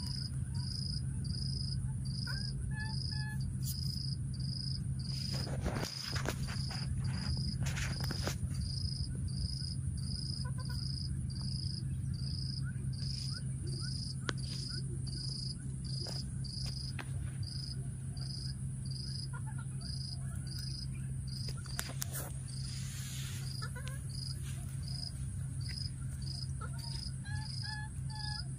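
An insect chirping steadily in an even rhythm, nearly two high chirps a second, over a steady low hum, with a few brief rustles.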